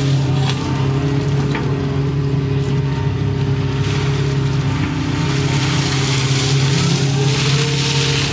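Doosan excavator's diesel engine running steadily under working load as the ditching bucket cleans out the ditch, with a brief rise and fall in pitch near the end.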